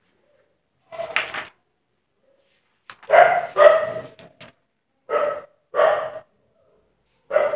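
A dog barking: about six short barks with silent gaps between them, the loudest pair about three seconds in.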